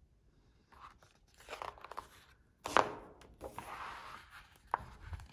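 Pages of a picture book being turned and pressed flat by hand: paper rustling and crinkling in several short bursts, the loudest about halfway through, with a sharp tap near the end.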